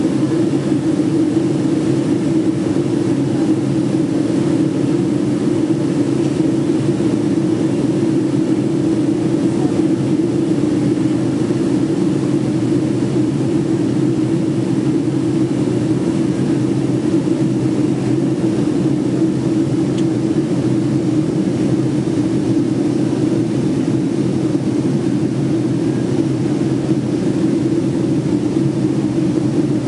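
Steady low drone of a Boeing 757-200's jet engines and airflow, heard inside the passenger cabin in flight.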